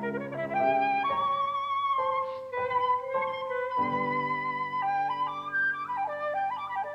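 Instrumental background music: a slow melody of held notes with vibrato over sustained lower notes.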